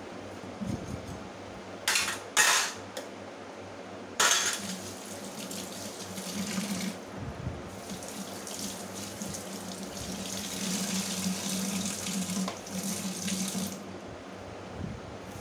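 Water from a kitchen tap splashing into a stainless steel sink: two short spurts about two seconds in, then a steady stream from about four seconds that stops shortly before the end.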